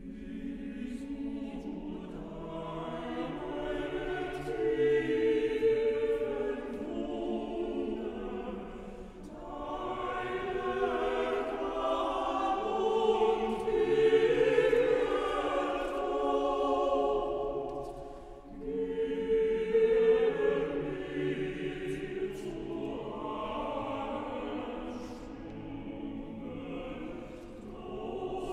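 Mixed choir singing slow, sustained phrases that swell and fade, with a short break about two-thirds of the way in.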